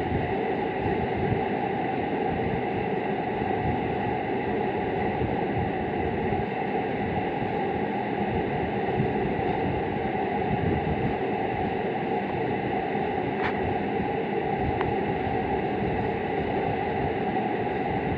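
Steady, even background hiss and hum, with two faint ticks about thirteen and a half seconds in and a second later.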